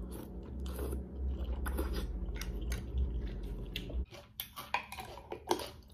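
A person eating khao piak noodle soup: slurping thick noodles off chopsticks and chewing with wet mouth sounds, turning to short smacks and clicks in the last couple of seconds.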